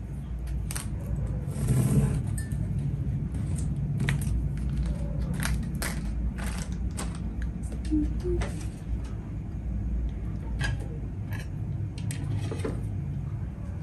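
Plastic takeaway food containers, a plastic fork and ceramic plates being handled on a table: scattered clicks, taps and clinks over a steady low hum.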